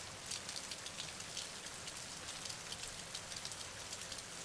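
Steady rain falling: a soft even hiss dotted with many small, sharp drop impacts.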